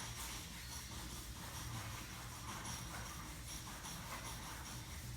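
Faint steady low hum with hiss, and a few faint light scrapes.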